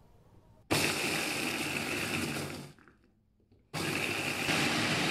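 Electric food chopper (Mitochiba) grinding Oreo biscuits into crumbs, run in two presses: it runs for about two seconds, stops for about a second, then starts again and keeps running.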